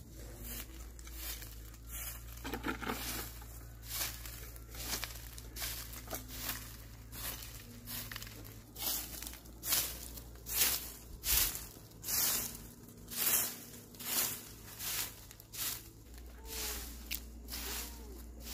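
Soft grass broom sweeping dry grass and leaf litter across a dirt yard: a brushing swish with each stroke, about one to two strokes a second, the strokes harder in the second half.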